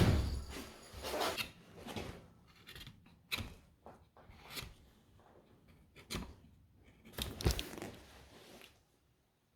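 A few short, faint rustling and scraping sounds, scattered irregularly about a second apart, with quiet gaps between them.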